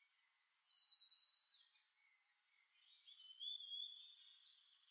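Faint, high whistled bird calls and chirps, with a longer whistle from about three seconds in.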